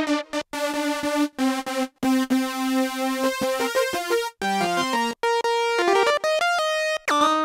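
Korg RK-100S 2 keytar playing a bright synthesizer patch: a melody of short, separate notes, mostly one at a time, with brief breaks between phrases.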